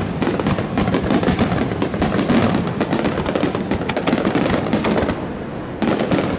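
Aerial firework shells bursting in rapid succession, a dense run of overlapping bangs. The bangs thin out briefly about five seconds in, then pick up again near the end.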